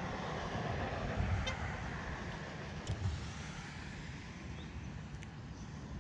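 A car passing over a road bridge: a swell of tyre and road noise that rises over the first couple of seconds and then fades, under wind buffeting the microphone. Two faint clicks sound about one and a half and three seconds in.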